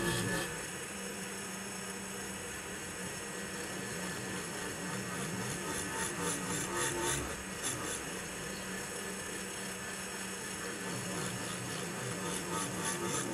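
Vertical milling machine running, its end mill skimming the face of a horn-block on a model locomotive frame: a steady motor whine with a light, even cutting rasp.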